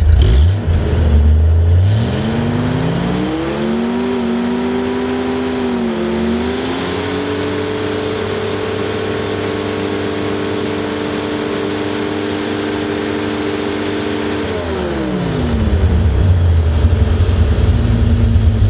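Car engine idling, then revving up over a few seconds and holding a steady high speed with a brief dip, before dropping back to idle near the end.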